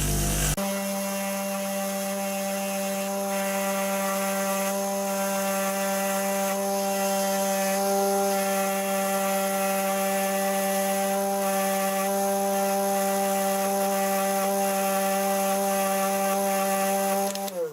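Motorised wire wheel running with a steady hum while a brake pad pin is held against it to clean it up. The motor is switched off and winds down near the end.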